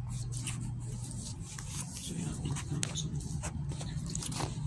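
A steady low hum with many short, light clicks and rustles scattered through it, as of a phone being handled while walking on a concrete floor.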